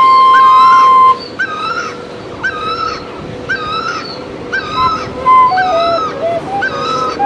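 Hmong raj flute tune over a steady held drone note: a short bending phrase repeats about twice a second, a held high note stops about a second in, and a few stepped lower notes come in from about five seconds.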